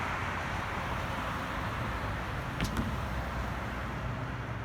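Steady outdoor background noise, a low rumble with a hiss over it, like distant road traffic, with one short click about two and a half seconds in.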